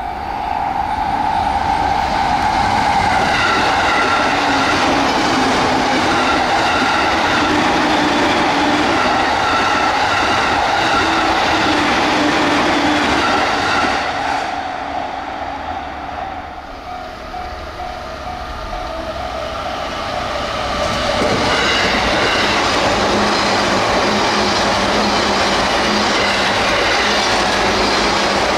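Electric train running at high speed: steady loud rail and running noise with a whine of several held tones. It eases off for a few seconds about halfway through, then builds up again.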